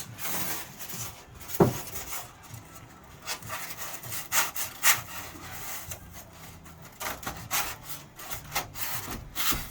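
Boards being handled and propped against the ceiling: irregular rubbing and scraping of board on wood, with a sharp knock about a second and a half in.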